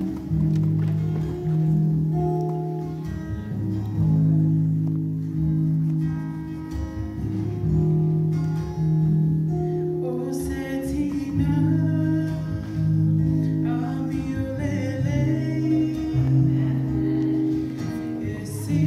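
Acoustic guitar playing a slow intro of sustained chords, then a woman starts singing into a microphone about ten seconds in, with the guitar accompanying her.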